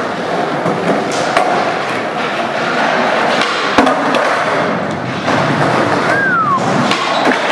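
Skateboard on a concrete floor during flip-trick attempts: wheels rolling and the board clacking and slapping down. A sharp board impact about four seconds in is the loudest hit, with lighter knocks before and after.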